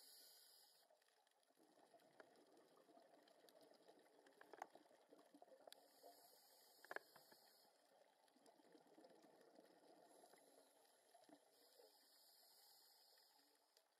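Faint underwater sound of a scuba diver's regulator hissing with each breath, three times about six seconds apart, over a faint crackling with a couple of sharp clicks.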